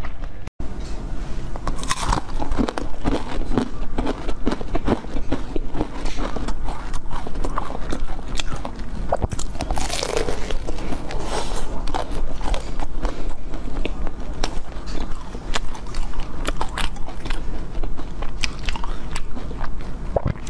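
Close-miked biting and chewing of a frozen chocolate-coated ice pop: repeated crisp, crunchy bites through the hard frozen shell, with chewing between them.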